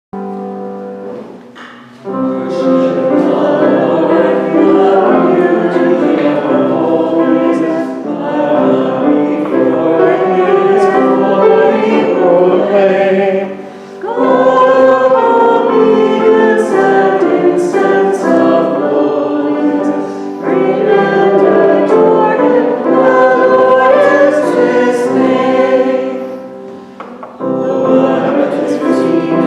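Choir singing, starting on a quieter held chord and then coming in fully about two seconds in, in phrases of about six seconds with short dips between them.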